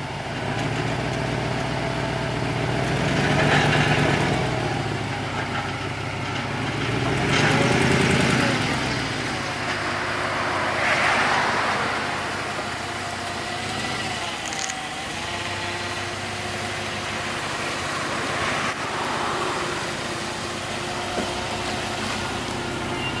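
Jeep Grand Cherokee's HEMI V8 running after its oil pressure sensor has been replaced, a steady engine note that swells louder a few times, at about four, eight, eleven and nineteen seconds in.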